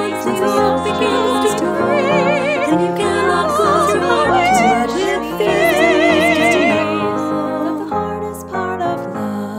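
Several women singing together in harmony with wide vibrato over piano accompaniment, a musical-theatre song; the voices thin out and grow quieter near the end.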